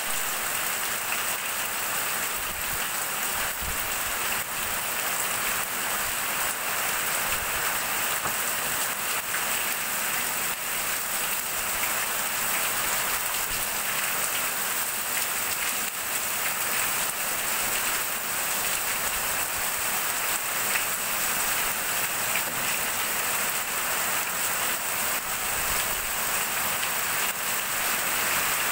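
Heavy rain falling steadily on a corrugated roof and pouring off its edge in streams.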